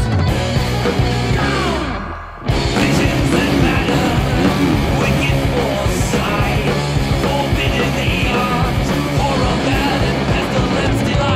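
Background music with a driving beat that dips and drops out briefly about two seconds in, then comes back in full.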